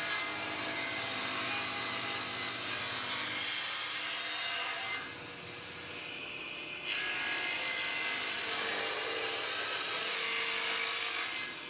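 Table saw blade cutting along the edge of a wooden picture frame, trimming the reinforcing splines flush with a back bevel. There are two cutting passes, with a quieter stretch of about two seconds between them around the middle.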